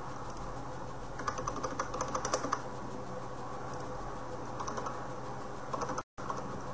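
Computer keyboard typing in two bursts of quick key clicks, the first and longest about a second in, the second near the end, over a steady low hum.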